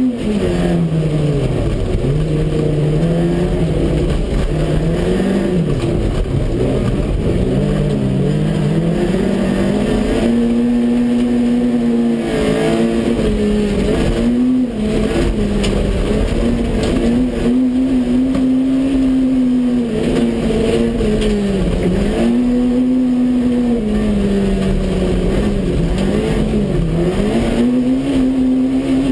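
Citroën AX GTI's four-cylinder petrol engine heard from inside the race car's cabin, running hard under full throttle. Its pitch holds high, then drops sharply and climbs back again about seven times as the driver lifts off and shifts for corners.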